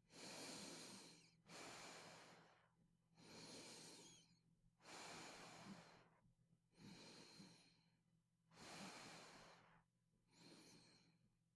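A sleeping person breathing quietly and slowly through a mandibular advancement device, with no snoring rattle. About seven airy breaths in and out, stronger and weaker in turn, each lasting about a second.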